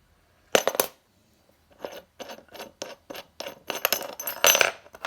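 Metal clinking and rattling from a bicycle side stand being handled: a quick, irregular run of sharp clinks and knocks with a light metallic ring, starting about half a second in.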